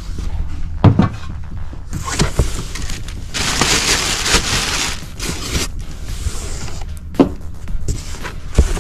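Unpacking a meat grinder from its packaging: a few sharp knocks and thumps, with a second or two of rustling noise in the middle.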